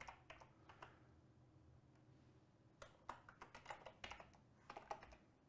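Faint computer keyboard typing: a few keystrokes at the start, a short pause, then a steady run of keystrokes through the second half.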